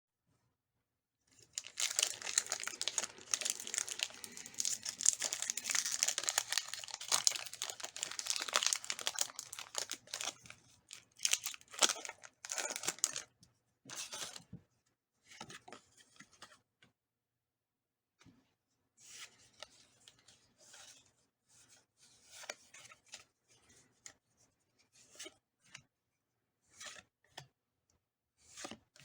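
Foil wrapper of a Pokémon booster pack being torn open and crinkled for about eleven seconds. After that come scattered soft rustles and clicks of handling.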